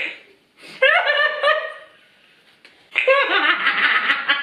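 Young women giggling and laughing: a short high-pitched giggle about a second in, then a longer burst of choppy laughter from about three seconds in.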